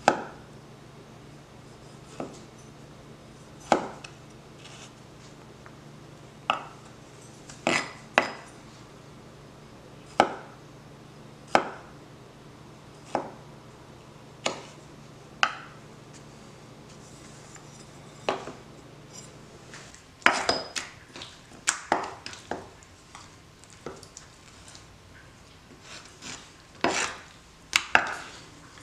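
A small broad-axe-shaped metal cleaver chopping vegetables on a wooden cutting board, each stroke a sharp knock of the blade on the wood. The knocks come singly every second or two, then in quicker clusters near the end.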